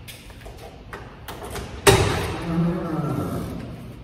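Rear deck lid of a 1988 Pontiac Fiero being opened: a few light clicks, then a sharp clunk about two seconds in as the latch lets go and the lid is raised, echoing in the parking garage.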